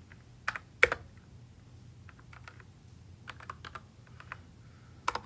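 Typing on a computer keyboard: a few separate keystrokes, two louder ones about half a second in, then a loose run of lighter taps and one more near the end, over a faint steady low hum.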